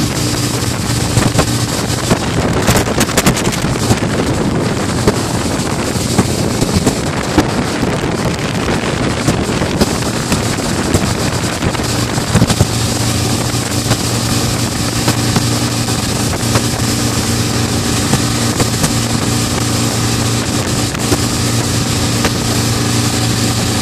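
Mercury outboard motor running steadily at speed while towing, with a constant engine drone. Wind on the microphone and rushing wake water are mixed in, and the wind drowns much of the drone for several seconds in the first half.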